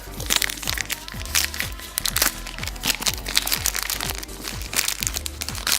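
Background music with a steady beat: short, deep bass notes that slide down in pitch, repeating under quick high ticks.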